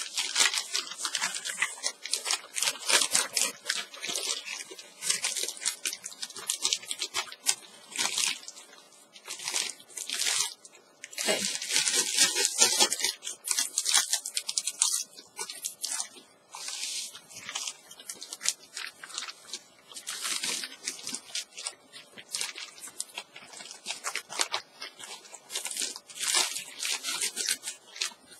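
Plastic mail bag crinkling and rustling in quick, irregular bursts as it is handled, with sounds like tearing.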